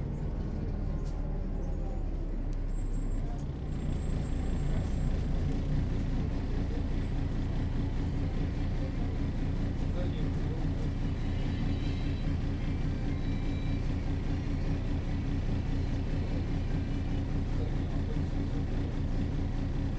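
Mercedes-Benz O405 city bus's diesel engine running with a steady, pulsing drone; about four seconds in its note changes and gets louder, then holds steady.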